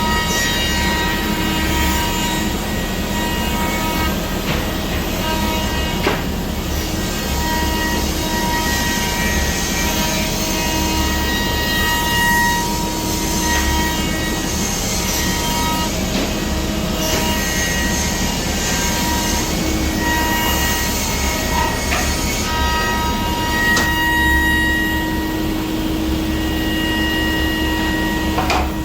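Biesse Rover A five-axis CNC machining centre running, with a constant mechanical hum and steady whining tones that start and stop every few seconds as the machine works, and a couple of brief knocks.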